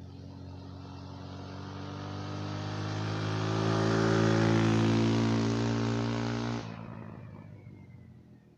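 Taotao 50cc scooter with a longer aftermarket exhaust in place of the cut-off stock one, riding past at about 30. Its engine drone grows steadily louder as it approaches, drops off sharply about two-thirds of the way in, then fades away.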